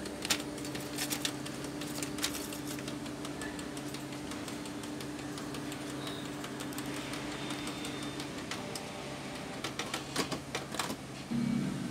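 Canon PIXMA MP287 inkjet printer's mechanism running, a steady motor hum with scattered clicks. The hum stops about two-thirds of the way through, and a quick run of clicks follows near the end.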